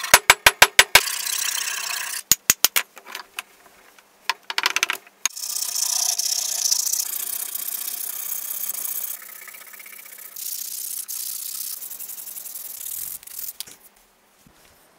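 Wooden hatchet handle being worked by hand: a quick run of scraping strokes, about six a second, in the first second, then long stretches of steady rubbing as the handle is sanded, broken by short pauses and stopping about a second before the end.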